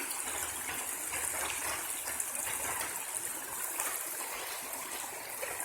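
Small stream of water running steadily.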